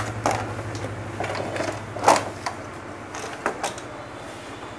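Handling knocks and clicks as a CRT television's main circuit board is lifted and shifted out of its plastic chassis, several separate knocks with the loudest about two seconds in, over a steady low hum.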